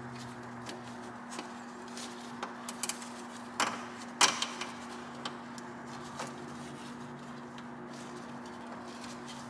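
Scattered clicks and knocks of hands handling plastic parts and wiring at a car's radiator support and hood latch. The two loudest knocks come about three and a half and four seconds in, over a steady low hum.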